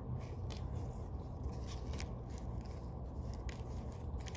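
Scissors snipping several times, trimming a foam squishy to round off a corner, over a steady low hum.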